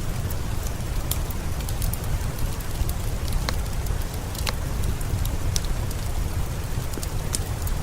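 Steady rain with a fireplace crackling: a dense, even hiss over a low rumble, with many scattered sharp pops and clicks.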